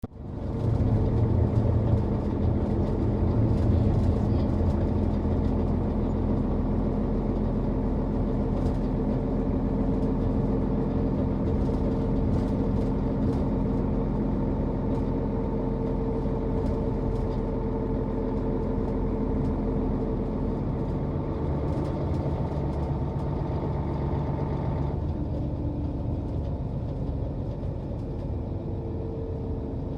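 Bus engine running steadily, a low drone that is loudest in the first few seconds; about 25 seconds in, its higher part drops away suddenly.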